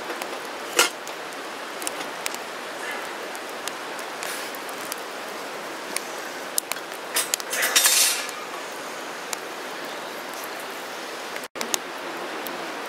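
Metal clinking as steel support bars and a stainless-steel grill grate are set onto a steel portable fire pit: one loud clank about a second in, then a burst of rattling clinks around eight seconds. A wood fire crackles and hisses steadily underneath.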